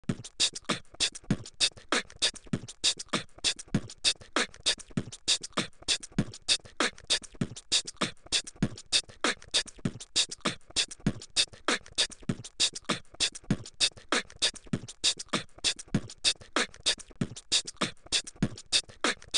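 Human beatboxing into a microphone: a fast, even beat of sharp mouth-made percussion with deep kick-drum thuds on the beat, which stops abruptly at the end.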